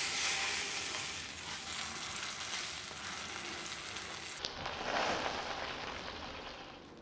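Sous vide ribeye steak sizzling as it sears in hot oil in a cast iron skillet. The sizzle is steady, changes abruptly about four seconds in, and eases off near the end.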